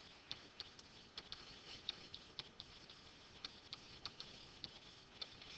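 Faint, irregular light ticks and taps of a stylus writing by hand on a digital screen, a few strokes a second.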